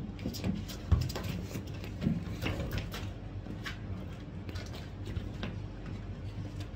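Trainers stepping and scuffing on paving slabs, with one heavier thump about a second in.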